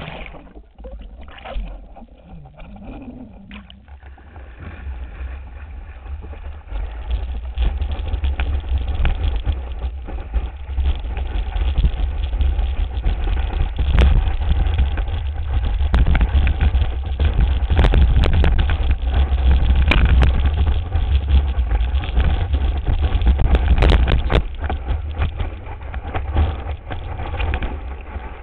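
Wind buffeting and water rushing past a camera mounted on the nose of a surfboard being towed at speed, a loud low rumble that builds about seven seconds in, with repeated splashes of spray.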